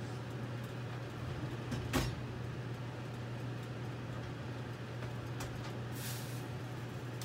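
A steady low hum, with a sharp click about two seconds in and a short hiss near the end.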